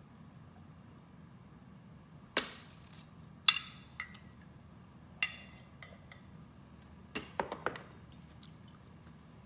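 Glass food container clinking and knocking as it is handled and set down: a series of sharp clinks with a short ring, scattered at first, then four in quick succession near the end.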